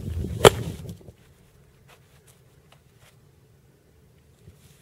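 A golf club strikes a ball once: a single sharp crack about half a second in, over a low rumble that drops away soon after.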